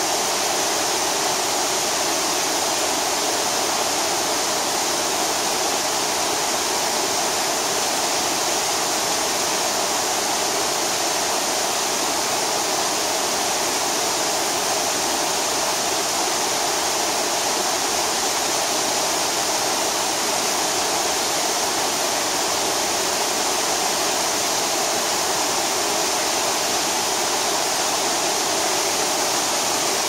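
Waterfall cascading down a rock face into a rocky river: a steady, unbroken rush of falling and tumbling water.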